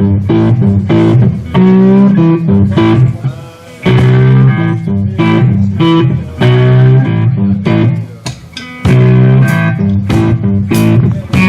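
Live blues-rock band playing an instrumental riff: electric guitar chords with bass and drums, repeating every couple of seconds with brief gaps between phrases.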